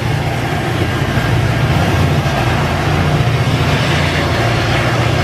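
EMD F40PH diesel locomotive running under throttle as it approaches, a loud, steady engine rumble with the noise of the train on the rails.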